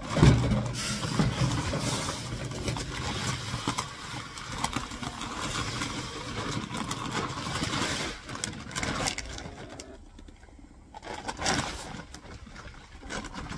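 Dry poultry feed pouring from a paper sack into a galvanized metal trash can, a steady rushing hiss that dies away about eight seconds in, followed by quieter handling and rustling of the sacks.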